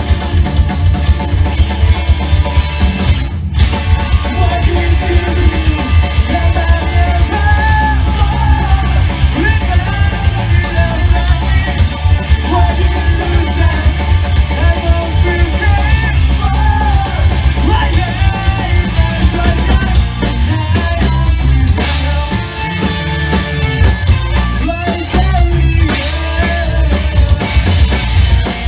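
Rock band playing live, loud and continuous: drum kit, heavy bass and guitar, with vocals. The music cuts out for a moment about three and a half seconds in.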